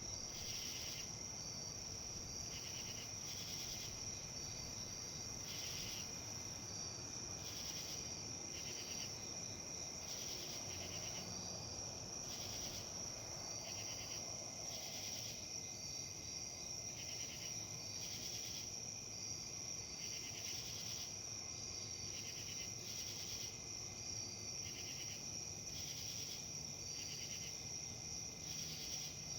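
Insects singing, crickets or similar: a steady high-pitched drone with a short trilled chirp repeating about once a second, over a faint even background hiss.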